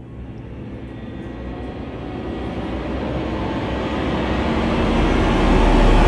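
Rushing, jet-like whoosh that swells steadily louder, an added build-up sound effect.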